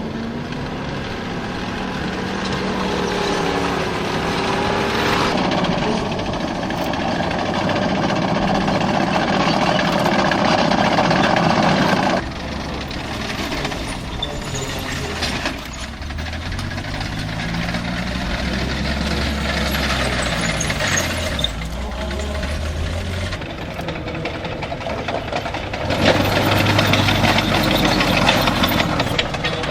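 Tiger I tank's Maybach V12 petrol engine running, its pitch rising and falling through the middle of the stretch as it revs. The sound changes abruptly about five and twelve seconds in.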